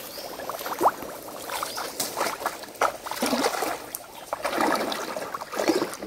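Shallow stream water splashing and sloshing in irregular swishes as a person wades through it, pulling a submerged fish trap by its rope.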